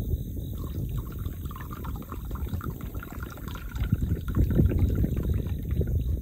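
Coffee poured from a steel vacuum bottle into a small stainless steel cup, the pitch of the stream rising slightly as the cup fills, over a low rumble.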